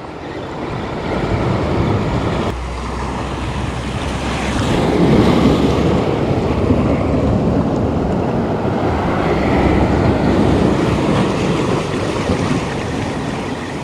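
Waves breaking and washing over shoreline rocks, with wind buffeting the microphone. The surf swells louder for several seconds in the middle.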